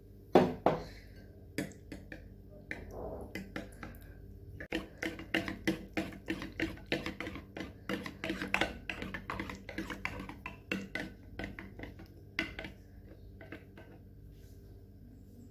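A utensil stirring yogurt and condensed milk together in a bowl, clicking against the bowl's side. A few scattered taps at first, then a quick, steady run of taps through the middle that thins out near the end.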